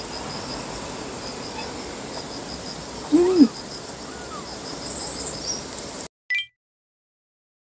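Short cat cries from a stray mother cat's nest of newborn kittens: one loud meow about three seconds in, then a fainter, higher mew a second later. A steady row of high insect chirps runs underneath, and the sound cuts off about six seconds in.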